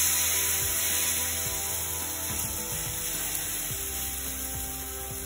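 Dosa batter sizzling on a hot oiled tawa as it is poured and spread. The hiss is loudest at the start and slowly dies down, over background music.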